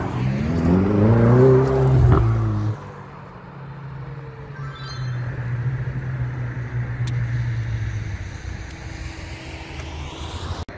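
Ferrari sports car engine accelerating hard as the car passes close by, its pitch rising for the first second or so. The sound drops off suddenly a little under three seconds in, and the engine note then carries on more faintly and dies away as the cars drive off.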